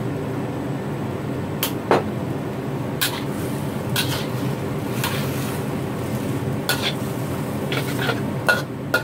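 Metal spatula scraping and knocking against a wok while squid and napa cabbage are stir-fried, with irregular strikes every second or so, over a steady low hum.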